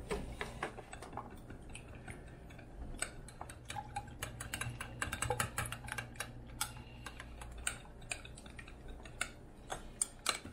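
A metal fork whisking eggs in a glass Pyrex measuring cup: quick clinks of metal on glass, scattered at first, then a fast dense run of clicks from about three seconds in.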